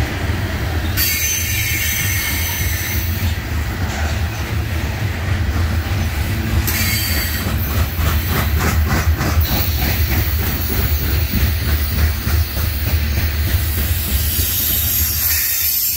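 Loaded coal cars of a Norfolk Southern freight train rolling past, a steady rumble of steel wheels on rail. High-pitched wheel squeal comes and goes, and a quick run of rhythmic clacks over the rail joints comes about eight to nine seconds in.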